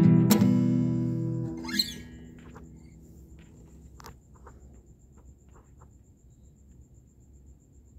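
Acoustic guitar strummed, the last chord ringing out and dying away by about two seconds in, with a quick rising squeak as it ends. After that the guitar is quiet, leaving a faint steady insect trill and a few light taps.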